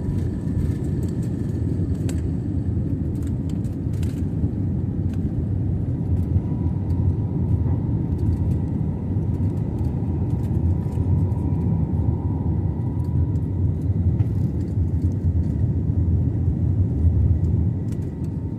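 Steady low rumble of an Airbus A321neo's CFM LEAP-1A engines and airframe heard inside the passenger cabin, with a faint steady whine above it. A few light clicks or rattles come in the first few seconds.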